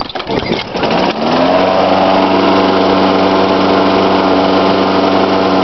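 Craftsman push mower engine catching about a second in, revving up and then running steadily at full speed. It starts on one pull now that its completely clogged air filter has been cleared.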